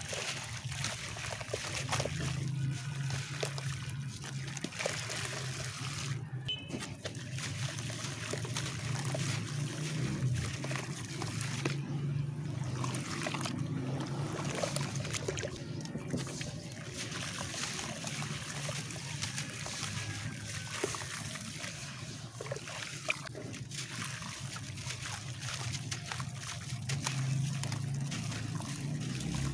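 Wet, crumbly concrete chunks being squeezed and broken apart by hand in a tub of water: continuous splashing, sloshing and trickling with gritty crumbling, over a steady low hum.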